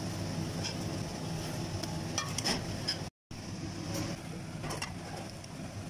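Flour tortilla puffing up in a dry nonstick frying pan on the stove: a steady kitchen hum with faint sizzling and a few light ticks. The sound cuts out for a moment about three seconds in.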